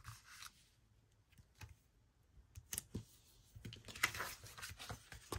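Light taps and clicks of fingers and a paper sticker being pressed onto a planner page, with a short paper rustle about four seconds in.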